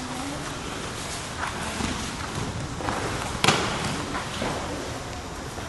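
Bodies hitting the mat in aikido throws and breakfalls: a few soft thuds, then one sharp slap about three and a half seconds in.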